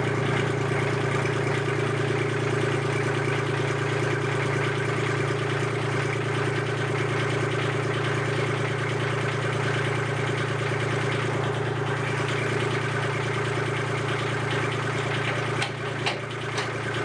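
Kubota L2501 compact tractor's three-cylinder diesel engine idling steadily. A few light knocks come near the end.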